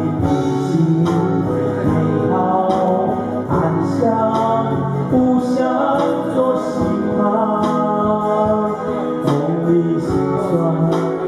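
Male vocals singing a slow song over two strummed frame-body guitars, amplified through microphones and pickups.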